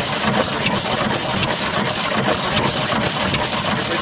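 Small single-cylinder hit-and-miss gas engine with twin flywheels running at idle, with a quick, even beat of clicks. Its crossover cam governs it by holding the exhaust valve open on the idle strokes.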